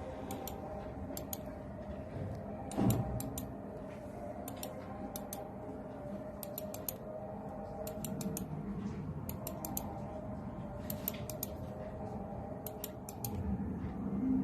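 Clicking on a laptop's buttons: short sharp clicks in quick clusters of two to four, repeating every second or so, over a faint steady hum, with one dull thump about three seconds in.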